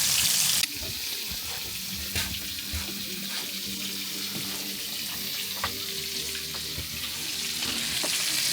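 Minced-meat cutlets frying in a pan, a steady hiss of sizzling fat. Under a second in the sizzle drops suddenly to a quieter hiss with a few faint pops, then slowly grows louder again near the end.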